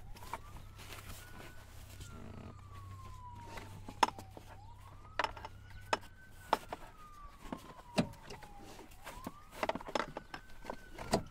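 An emergency-vehicle siren wailing, its pitch rising over about a second and falling slowly, repeating about every four seconds. Scattered knocks and clicks of a seat belt being fed through a child car seat's belt path sound over it, the sharpest about 4, 8 and 11 seconds in.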